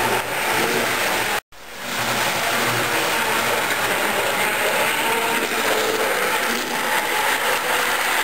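HO-scale model trains running close by on the track: a steady noise of wheels on rail and small electric motors. The sound drops out for an instant about a second and a half in.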